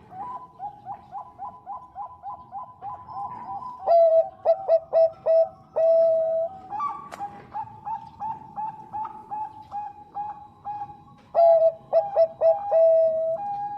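Zebra dove (perkutut bangkok) cooing: fast trains of short staccato notes, about four or five a second, with louder clusters about four seconds in and again near the end, each run closing on a longer held note.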